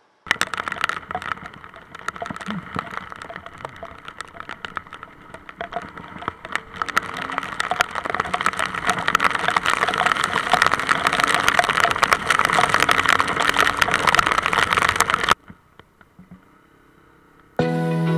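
Rain drumming and clicking on a motorcycle-mounted action camera, with wind and road noise, while riding through heavy rain; it grows louder about halfway through. It cuts off suddenly near the end, and music starts just before the end.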